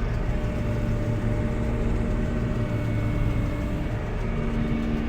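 Combine harvester running steadily while harvesting soybeans: an even drone of engine and threshing machinery with a low hum. A steady pair of tones in it fades out just after the start and comes back about four seconds in.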